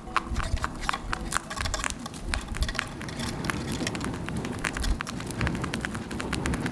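Typhoon rain pattering in many irregular sharp drops, over a low uneven rumble of wind.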